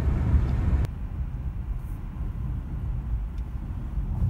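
Car cabin noise from inside a moving car: a steady low rumble that drops abruptly to a quieter hum about a second in.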